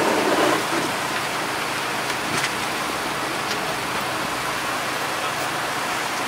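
Steady engine and vehicle noise: an even hiss over a low hum. A louder engine drone drops away about half a second in.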